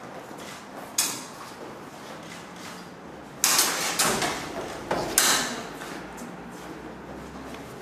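Metal-bladed longswords clashing during a sparring bout. There is one sharp clash about a second in, then a louder flurry of clashes and scuffling around the middle as the fencers close to grappling range, and one more sharp clash a moment later.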